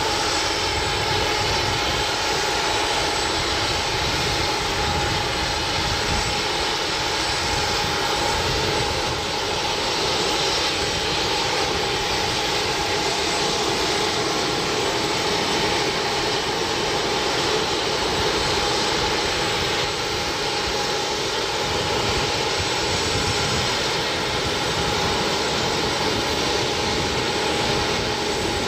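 Piaggio P.180 Avanti II's twin pusher turboprop engines running steadily at idle: an even turbine whine over a rumble that holds one pitch throughout.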